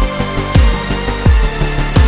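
Background music with a steady beat: a deep bass drum hits about every three quarters of a second, each one dropping in pitch.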